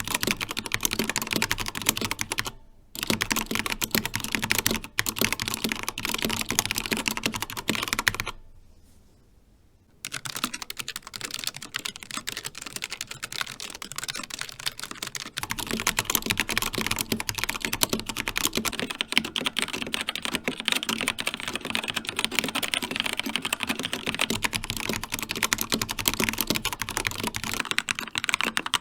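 Continuous fast typing on linear-switch mechanical keyboards, a dense clatter of key clicks: first a Corsair K70 Pro Mini Wireless with Cherry MX Red switches, then after a pause of about a second and a half, a Logitech G915 with GL Linear low-profile switches, and later an Xtrfy X4 with Kailh Red switches.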